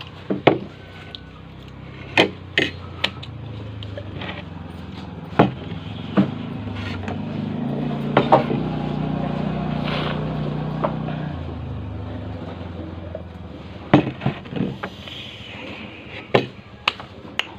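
A spoon clinking and scraping against a plate every second or two while eating. A low rumble swells from about four seconds in and fades away by about twelve seconds, like a vehicle passing.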